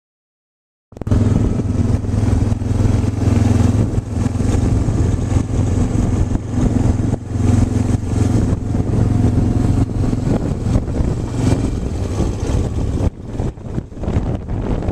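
An engine running steadily, starting abruptly about a second in and turning choppier near the end.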